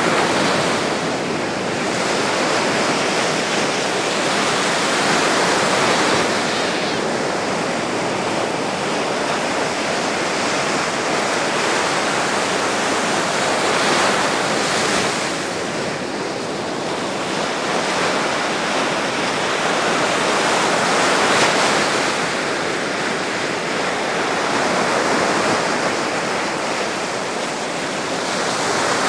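Rough sea surf breaking among rocks and washing up a sandy shore: a continuous rush of foaming water that swells every few seconds as each wave breaks.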